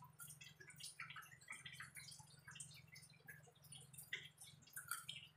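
Faint eating sounds of crunchy unripe mango slices being chewed: irregular small wet clicks and crunches, several a second, over a steady low hum.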